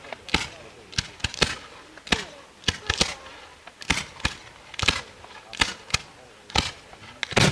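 Fireworks of a Bolognese battery going off: a quick, irregular string of sharp cracks, about two a second, with gold fountains and comet shots firing from the ground. The loudest crack comes near the end.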